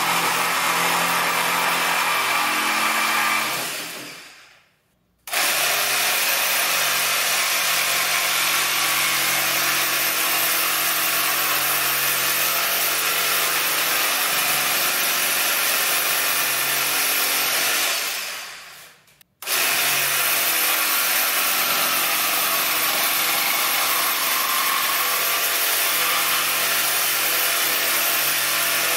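Cordless jigsaw cutting through a shelf board, its blade running steadily. The saw winds down and stops twice, at about 4 s and again near 18 s, and each time starts up again abruptly a second or so later.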